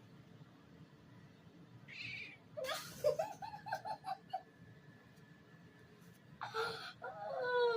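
A kitten making short chirping calls: one brief high call about two seconds in, then a quick run of about six chirps, and another call near the end.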